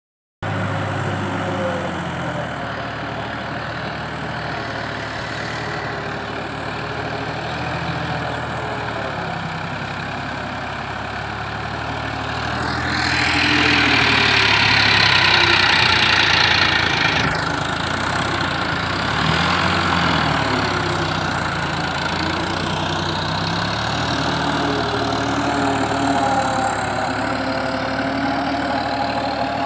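Farm tractor's diesel engine running steadily while pulling a rotary tiller through a flooded paddy. About halfway through it grows louder for a few seconds with a rushing noise, then settles back to a steady engine sound.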